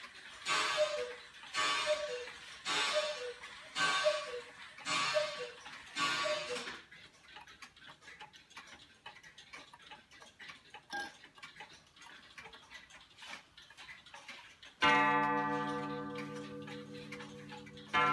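Regulator wall clock's gong struck twice, about three seconds apart; each stroke rings out with many tones and slowly fades, the second near the end. Before that, six short sounds about a second apart, each with two falling notes.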